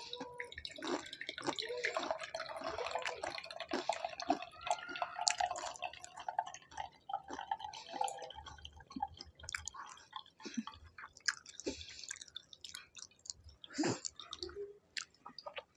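Vodka poured slowly from a glass bottle into a drinking glass: a faint trickle and dripping with small clinks, and a faint steady ringing note under it for the first half.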